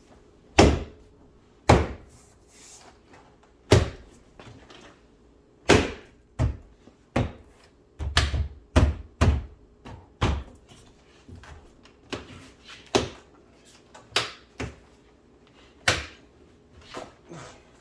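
About a dozen irregular knocks and clunks, some in quick runs, as parts of a 2018 BMW X6 rear door are lined up and pushed into place during reassembly.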